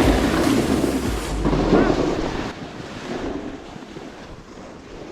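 Wind buffeting the microphone in gusts with a heavy low rumble, loud at first and dying down after about two and a half seconds.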